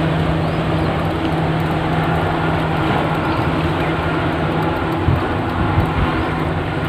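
Steady low hum of a large tanker ship's machinery close offshore, over wind on the microphone and small waves washing on the shore.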